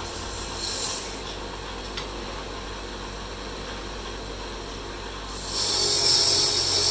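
Woodturning lathe at work: its electric motor hums steadily while a tool works the wood, and about five and a half seconds in the cutting grows clearly louder and more hissing.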